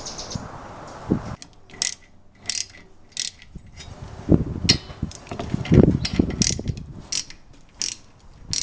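Ratchet wrench clicking in short bursts on its return strokes, about one to two bursts a second, as a brake caliper slide pin bolt is worked loose. A couple of heavier low knocks come in the middle.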